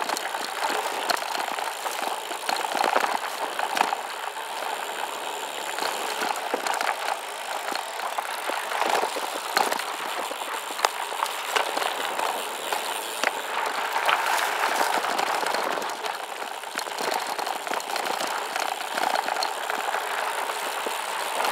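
Gravel bike (SCOTT Addict Gravel 10) rolling over a loose, rocky dirt road: a steady crunch of tyres on gravel and stones, broken by frequent small clicks and knocks as the bike rattles over the rocks.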